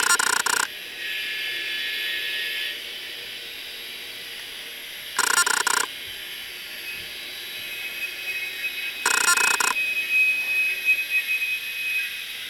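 Soundtraxx Tsunami decoder playing EMD 645 diesel prime mover sounds through a tiny speaker in an N-scale sound car, thin and treble-heavy. Three short loud bursts cut in: at the start, about five seconds in, and about nine seconds in.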